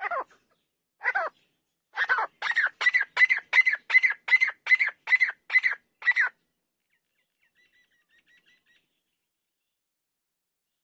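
Female grey francolin (teetar) calling: two single notes, then a quick run of about a dozen sharp, evenly spaced notes at roughly three a second that stops about six seconds in. A few faint, soft notes follow a little later.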